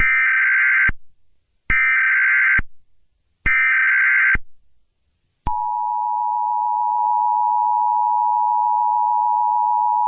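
Emergency Alert System alarm: three one-second bursts of the digital SAME header, a screechy data warble, with short gaps between them. About five and a half seconds in, the steady two-tone EAS attention signal starts and holds, announcing a tornado warning.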